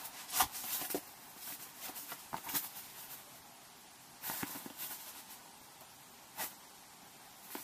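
Handling noise as a laser engraver head is lifted out of foam packaging and turned over in the hands: scuffs of foam and sharp clicks and taps, in short clusters with a single louder click past the middle.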